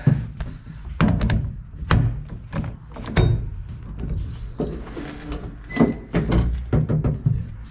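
Irregular thumps and knocks as a person climbs into a stripped-out car shell and settles into the seat, feet and body bumping the bare floor plate and bodywork.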